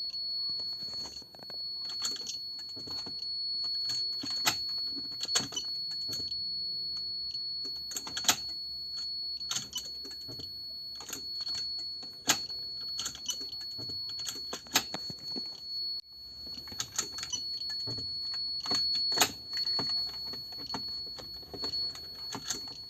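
Continuous high-pitched tone from an Xhorse VVDI Mini Key Tool detecting the ignition immobiliser coil's signal, a sign the coil is working, with irregular clicks and rattles of keys and handling over it.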